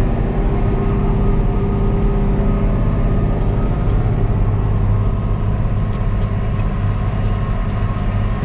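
Case IH Magnum tractor's diesel engine running steadily at an even pitch, pulling a Great Plains seed drill.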